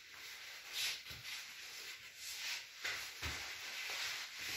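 Faint rustling and a couple of soft thumps from a person shifting their body on an exercise mat.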